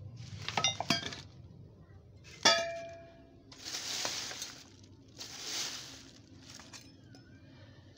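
Hard objects in a scrap pile being shifted by hand: a quick run of ringing clinks, then one sharp metallic clang that rings on. Two bursts of plastic-bag rustling follow.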